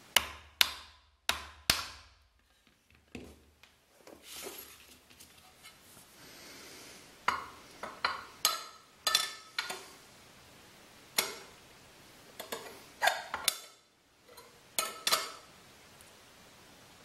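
Irregular sharp metallic clinks and knocks, some in quick pairs, as the stainless steel tube of a lathe spindle is handled and adjusted in its pillow-block bearings, with a metal square set against it for alignment.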